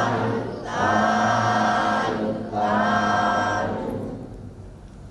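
A congregation calling out "sadhu" together in long, drawn-out group calls, the Buddhist cry of approval at an offering. One call ends about half a second in, two more follow, and the voices die away near the end.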